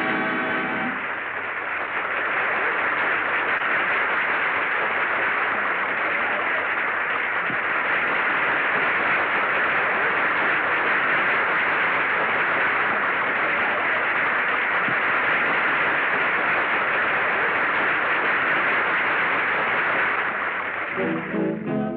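Audience applause on an old black-and-white film soundtrack, a steady even clatter that follows a song ending in the first second. A brass band strikes up near the end.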